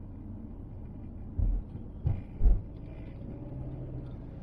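Car driving, heard from inside the cabin: a steady low road and engine rumble with a few short low thumps about one and a half and two and a half seconds in.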